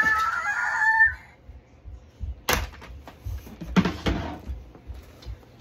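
A brief high, wavering call in the first second, then a white plastic toy storage box and its lid thrown down by a toddler, clattering on the floor a few times around the middle.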